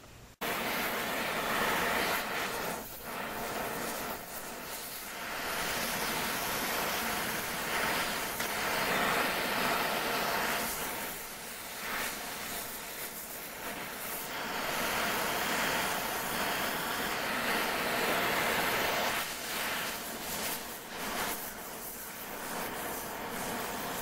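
Gas welding torch flame hissing steadily as it heats a steel tube on a bracket, with filler rod fed in to weld it. The hiss cuts in abruptly just after the start and swells and dips in loudness.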